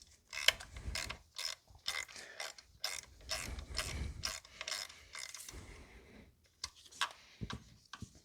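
A 3/8-inch hand ratchet clicking in quick irregular runs as it turns a spark plug out of the cylinder head of a BMW N55 engine.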